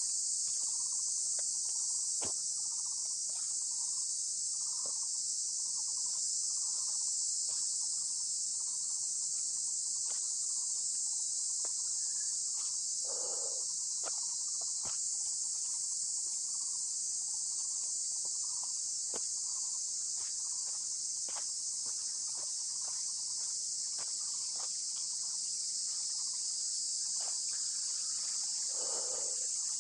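Steady, unbroken high-pitched drone of insects in the forest, with footsteps crunching on leaf litter as scattered clicks beneath it.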